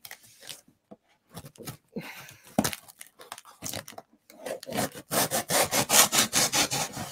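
Cardboard packaging being scraped and torn open. Scattered scrapes give way near the end to a quick run of rasping back-and-forth strokes, several a second, which is the loudest part.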